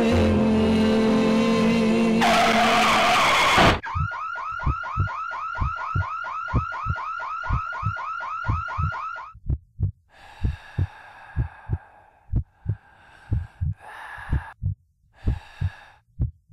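Music gives way to a tyre screech of about a second and a half that ends in a sharp impact, the sound of a car striking a pedestrian. Then a car alarm sounds a rapid rising whoop, about four a second, over regular heartbeat thumps. The alarm stops about halfway through, and the heartbeat thumps go on alone with brief bursts of hiss.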